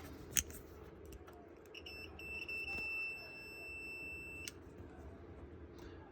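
Multimeter continuity beeper sounding a steady high-pitched beep for about two and a half seconds, stuttering briefly as it starts and cutting off sharply: the probes are finding continuity between the wire's far end and the connector pin, so the wire is seated in the pin. A single sharp click comes shortly before it.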